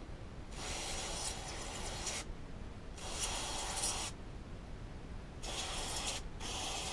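Aerosol carburettor cleaner sprayed through its straw nozzle onto small brass carburettor jets to clear them of clogging gunk: four hissing bursts, the first the longest at nearly two seconds.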